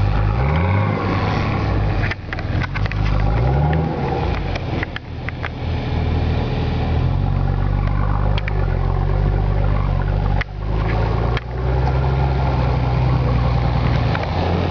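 Nissan Patrol Y60 diesel engine through a straight-pipe exhaust, revving up twice in the first few seconds and then running steadily under load as the 4x4 drives, with a few brief dips in the sound.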